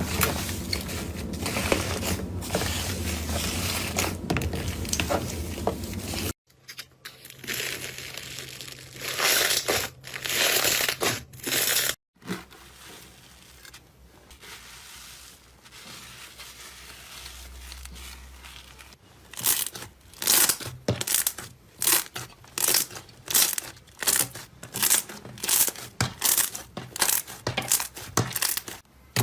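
Slime being handled by hand in a series of short clips: dense crackling at first, then after a cut softer squelching swells, and in the second half a regular run of sharp squishes a little more than once a second.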